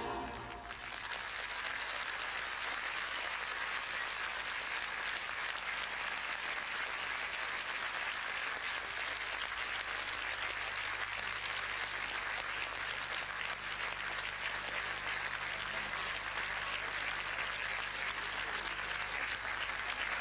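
Audience applauding steadily, with the last of the ballet music dying away in the first moment.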